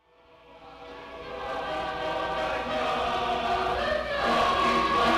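Choir singing, fading in from silence over the first second or so and then holding at a steady level.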